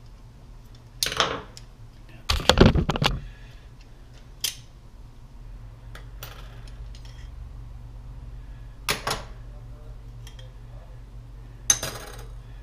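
Metal clinks and clatter from a garbage disposal's steel sink flange and mounting-ring parts being handled and taken apart, loudest in a rattle about two and a half seconds in, with a few lighter clinks after.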